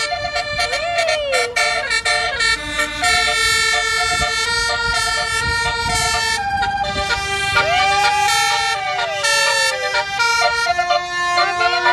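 Indonesian 'telolet' multi-tone bus air horns playing a tune of held tones that change pitch every second or so, with swooping siren-like rise-and-fall glides about a second in and again, longer, in the second half.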